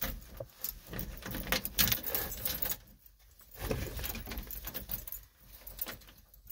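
Ignition keys jangling on their ring, with scattered clicks and small knocks from handling the key and controls in a pickup's cab, broken by two short quiet gaps.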